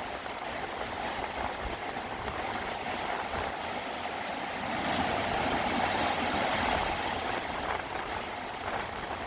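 Sea waves washing against coastal rocks: a steady rushing that swells to its loudest about five to seven seconds in, then eases.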